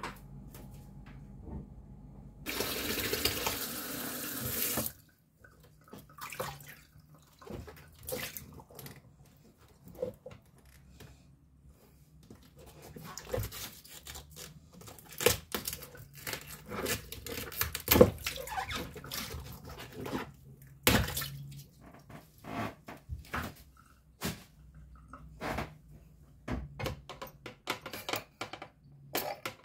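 Kitchen sink tap running for about two seconds, then a long stretch of scattered knocks and clatter as things are handled and washed at the sink, with two sharper knocks in the middle.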